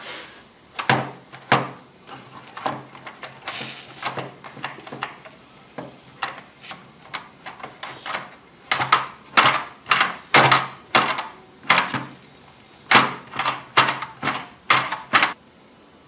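Wooden knocks and clunks from a model boat hull being handled on a workbench: a scattering of sharp knocks, then a run of louder ones at about two a second, stopping shortly before the end.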